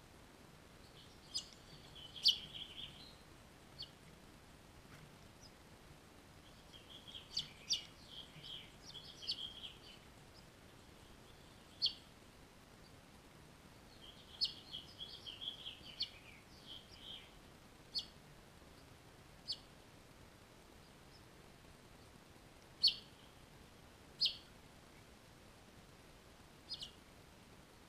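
Finches chirping: short high chirps, coming in a few bursts of rapid chirping and then as single sharp chirps every few seconds.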